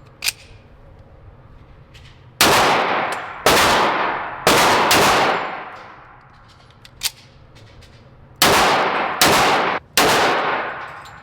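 Six gunshots at a shooting range, in two groups of three about a second apart, each ringing out for about a second; a single sharp click comes just before them, near the start.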